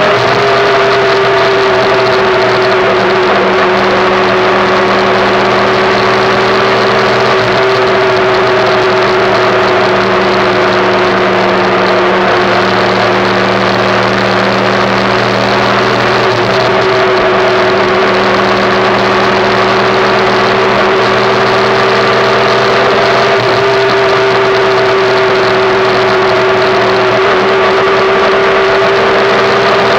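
A derestricted 2005 Yamaha YBR 125's single-cylinder four-stroke engine running at a steady cruise, with wind and road noise. The engine pitch dips a little midway and climbs back near the end.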